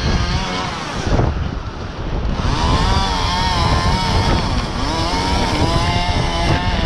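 Chainsaw engine running and revving, its pitch wavering up and down, with strong wind buffeting the microphone. The saw eases off about a second in and picks up again about two and a half seconds in.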